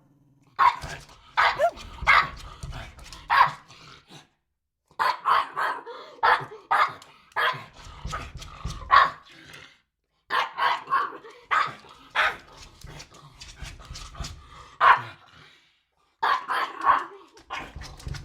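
Dog barking repeatedly, in runs of several quick barks each, with short silent breaks between the runs about every five to six seconds.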